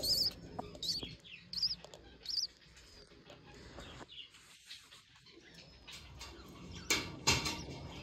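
Budgerigar chirping: four short, warbling high chirps about once every three-quarters of a second in the first few seconds. Two sharp knocks come near the end.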